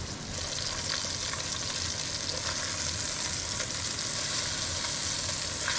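Floured steak pieces sizzling steadily as they fry in hot oil in a cast iron Dutch oven.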